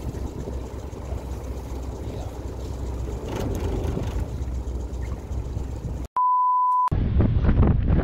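Low steady rumble of the fishing boat's engine with wind, then about six seconds in the sound cuts out to a single steady edited-in beep lasting under a second. After the beep, gusty wind buffets the microphone.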